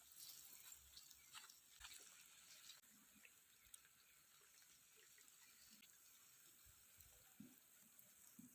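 Very faint irrigation water flowing to coconut trees: a soft even hiss with scattered small drips and ticks, close to silence.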